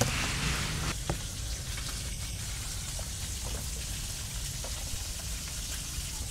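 Kitchen knife slicing a green bell pepper on a wooden cutting board, a few light irregular taps of the blade on the board, over a steady hiss.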